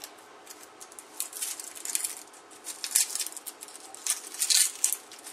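Dry onion skin crackling and rustling in irregular bursts as an onion is peeled by hand and trimmed with a chef's knife over a wooden cutting board. One sharp knock comes about three seconds in.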